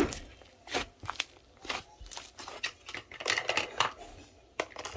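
A string of short, irregular crinkling and crackling handling noises, like a soft or papery material being pressed and squeezed.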